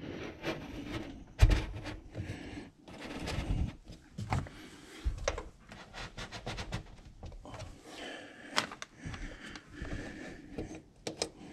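An oversized cupholder being test-fitted into a freshly hole-sawed opening in the boat's gunnel: irregular scraping, rubbing and knocking as it is pushed and worked into the hole, its lip rubbing against the wall.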